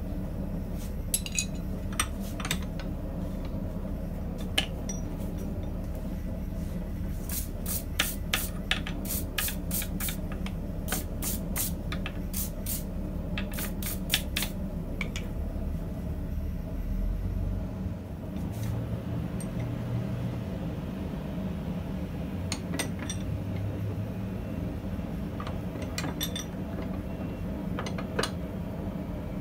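Steel wire brush scrubbing scale off a red-hot, freshly twisted H13 steel punch blank held in a vise: a quick run of scraping strokes in the middle, with a few sharp metal clinks before and after, over a steady low hum.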